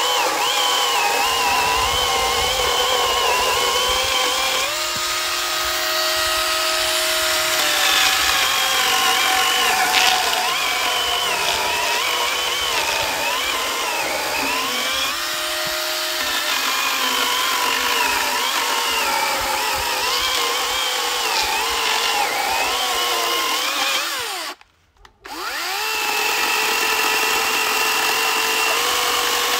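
Cordless electric chainsaw cutting through a log, its motor whine rising and falling with the load. Near the end the motor stops for about a second and then starts up again.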